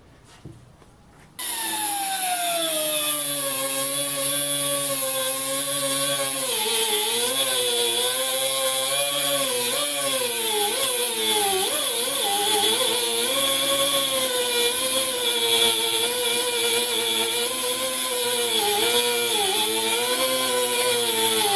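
Pneumatic die grinder with a small abrasive cut-off wheel cutting a high-speed steel tool bit: air hiss and motor whine that starts suddenly about a second and a half in, falls in pitch over the first few seconds, then wavers as the wheel cuts the steel. It stops abruptly near the end.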